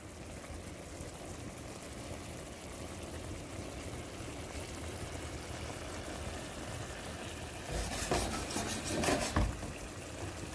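Broth in a pot of steamed fish and vegetables simmering, a steady bubbling and sizzling, with a louder spell of crackling about eight seconds in.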